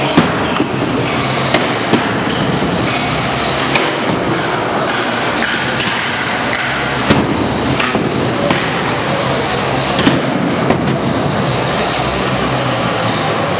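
Hobbyweight combat robots fighting: a drum-spinner robot striking a wooden thwack bot, with several sharp knocks spread irregularly over a steady background noise, the loudest just after the start.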